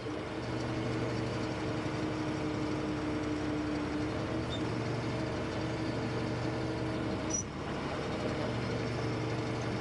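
Vehicle engine running steadily at a constant speed: an even low hum with no change in pitch.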